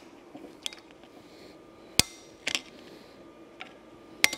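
Screwdriver clicking against steel as the retaining clip is worked off the bull gear shaft inside an Allis Chalmers D17 final drive: a few sharp metallic clicks, the loudest about two seconds in.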